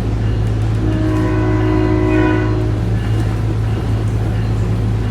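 SMART diesel railcar's horn sounding a long blast about a second in, then a short one, over the steady low rumble of the train running, heard from on board.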